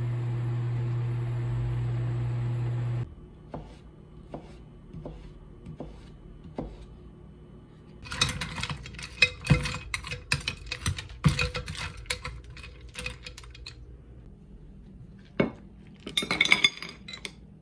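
A steady hum for about the first three seconds, then a few light taps, then ice cubes clinking hard against the pot as metal chopsticks stir cooked noodles in ice water. Near the end there is one sharp knock, then the ice and noodles clatter as they are tipped into a bowl.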